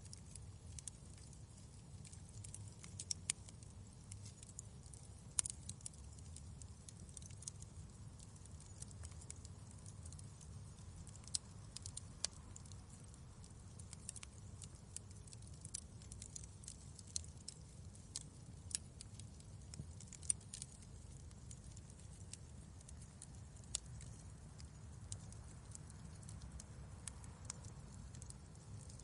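Wood fire crackling in a fireplace: irregular sharp pops and snaps, a few louder than the rest, over a faint low rumble of the burning fire.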